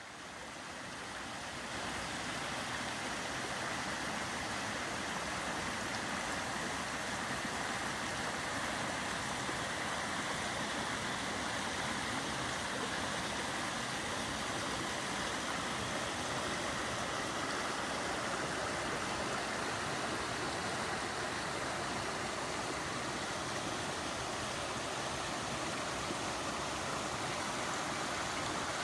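A creek rushing over small falls, a steady even wash of running water that fades in over the first couple of seconds.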